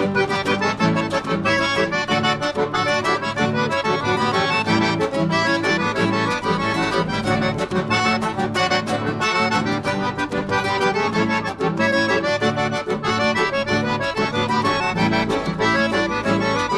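Accordion playing the instrumental introduction of a southern Brazilian gaúcho song, over a low bass line and a steady beat.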